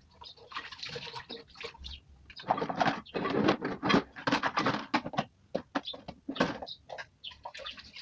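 Washing dishes by hand at a kitchen sink: splashing water with dishes and utensils clattering, busiest from about two and a half to four and a half seconds in.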